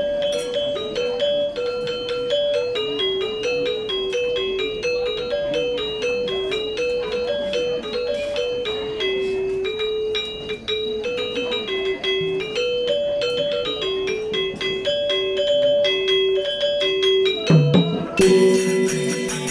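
Balinese gamelan angklung ensemble playing: metallophones strike a lilting melody that steps among a few notes, with quick high interlocking notes above it. Near the end the playing changes to a denser, louder texture.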